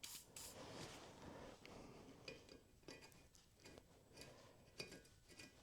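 Near silence, broken by a few faint, scattered clinks and taps of small metal tools or parts being handled.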